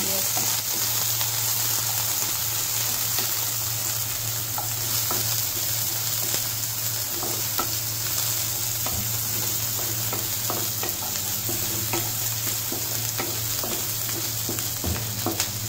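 Chopped onions, green and dried red chillies and cumin seeds sizzling in hot oil in a kadhai, stirred with a wooden spatula that scrapes and taps the pan now and then.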